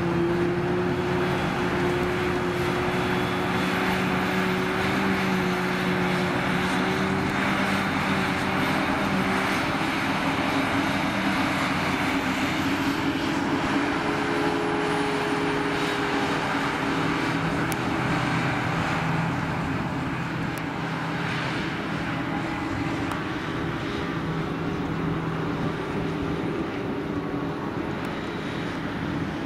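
Heavy diesel farm machinery at work on silage: forage harvester and tractor engines running steadily under load, a loud drone with a pitched whine that wavers slightly.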